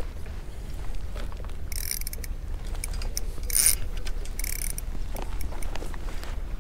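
Spinning reel being cranked to retrieve a lure, its gears whirring in three short spells, about two, three and a half and four and a half seconds in, over a steady low rumble.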